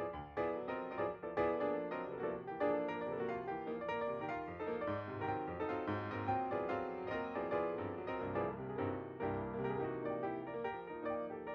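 Piano music: a steady run of notes.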